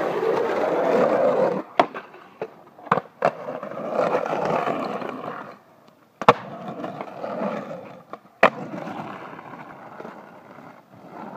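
Skateboard wheels rolling on a concrete path, with several sharp clacks of the board. The rolling stops for about half a second while the board is in the air, then the board slaps down loudly about six seconds in, with another sharp clack a couple of seconds later; the rolling fades toward the end.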